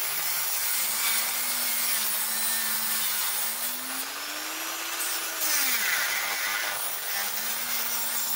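Power tool cutting through stainless steel, its motor running steadily under the gritty hiss of the cut. The motor's pitch sags and recovers as the blade bites, most clearly about six seconds in.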